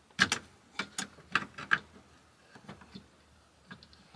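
Screwdriver clicking and tapping at the release tabs of DIN-rail breakers, prying them off the rail in a metal combiner box: several sharp clicks in the first two seconds, then a few fainter ticks.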